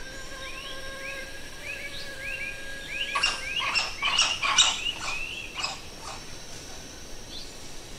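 Rainforest animal calls: a run of short rising chirps about two a second, then a louder burst of harsh, ringing calls from about three seconds in that fades after about six seconds, over a steady high hum of forest background.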